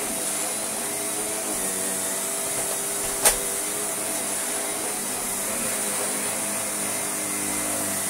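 Shark upright vacuum cleaner running steadily and working normally, with one sharp click about three seconds in.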